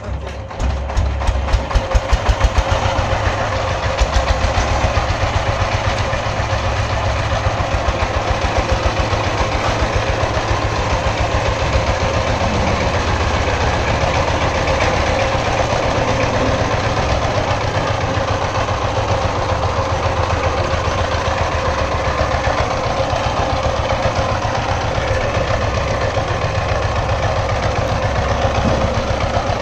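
Single-cylinder diesel engine of a two-wheeled power tiller starting after hand-cranking. Its firing beats quicken over the first two seconds, then it runs steadily with a rhythmic knocking beat while the tiller drives along pulling its trolley.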